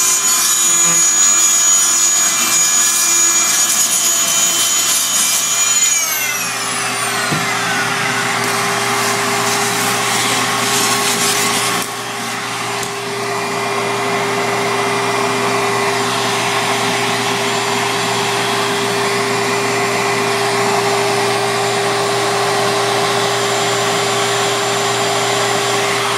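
Fein Multimaster oscillating tool and a vacuum running together on tile grout. About six seconds in, one motor is switched off and its whine falls in pitch as it spins down, while the other keeps running with a steady hum.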